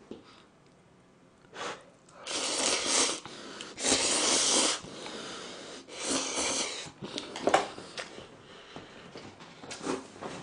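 Noisy slurping of a mouthful of ramen noodles, in several long pulls of about a second each with short pauses between.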